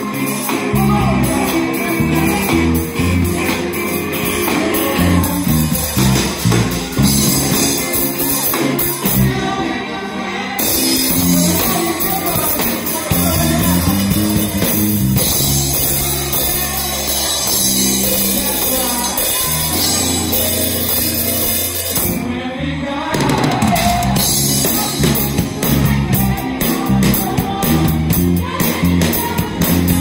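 Live band playing an upbeat R&B song: electric bass, electric guitars, keyboard and drum kit with tambourine, and a singer on a microphone over them.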